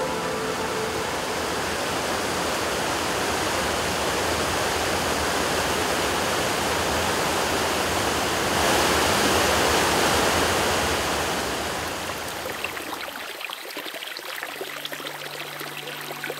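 Rushing water in a steady, full flow that swells a little past the middle, then thins to a lighter flow near the end as soft music comes in.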